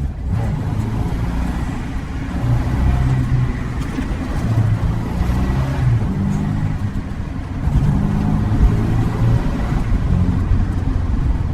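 Volvo Amazon's engine running under way, its pitch rising and falling several times as it is driven.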